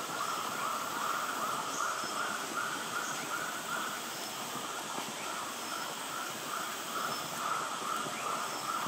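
Forest ambience: short animal call notes repeating about three times a second over a steady hiss.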